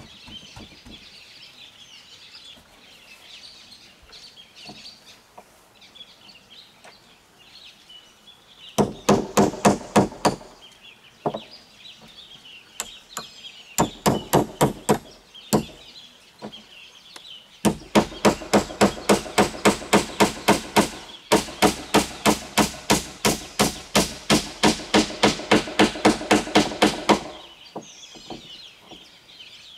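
Hammer striking nails down through corrugated roofing sheets into a bamboo frame. The strikes come quickly, about four a second, in three runs starting about nine seconds in, and the last run lasts nearly ten seconds.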